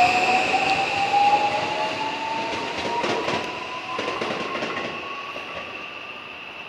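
JR West 521 series electric multiple unit accelerating away, its IGBT-VVVF inverter traction motors whining with a steadily rising pitch that fades as the train recedes. A few wheel clicks over rail joints come in the middle.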